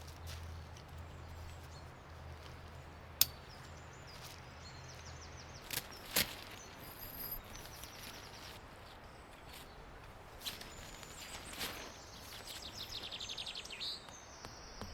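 Forest ambience with a bird singing a rapid high trill twice, a few sharp clicks and knocks, and a low hum that stops about six seconds in.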